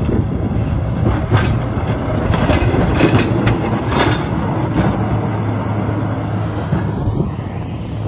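A John Deere motor grader's diesel engine running as it passes close, with its plow blade scraping and clattering over the snow-covered road in several sharp rattles in the first half.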